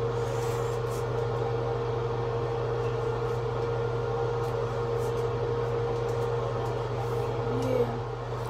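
Steady machine hum, an appliance or fan motor running, with a constant low drone and a held tone above it.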